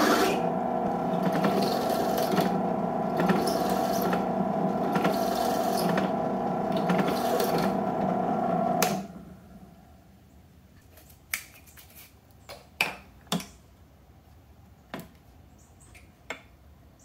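Delta benchtop drill press running at low speed, a 1/4-inch bit drilling out the bore of a small metal shaft coupling; it stops about nine seconds in. After that come a handful of light sharp clicks as the small part is handled at the drill-press vise.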